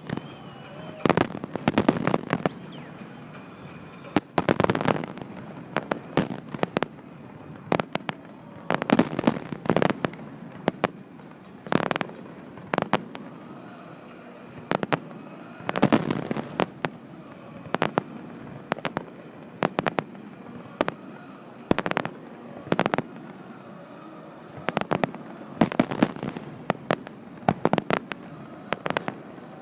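Fireworks going off: a long irregular series of sharp bangs, some coming singly and some in quick clusters of several.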